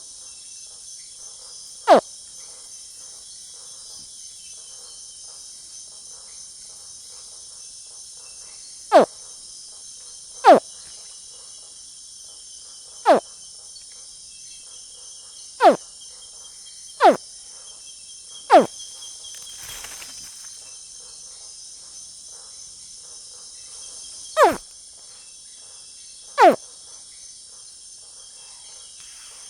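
Juvenile crocodile giving short chirping calls that drop quickly in pitch, about nine of them at irregular intervals, over a steady high-pitched chorus of crickets. A brief rustle comes about twenty seconds in.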